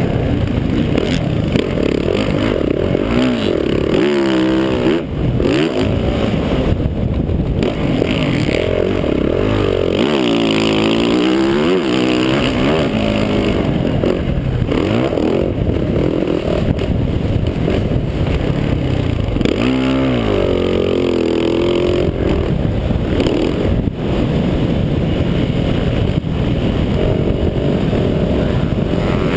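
Motocross dirt bike engine heard close up from the bike itself, revving hard under load, then dropping off and climbing again several times as the throttle is rolled off and back on, with clear dips about 4, 10 and 20 seconds in.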